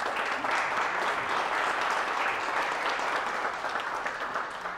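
Audience applauding: steady clapping of many hands that begins just before and starts to fade near the end.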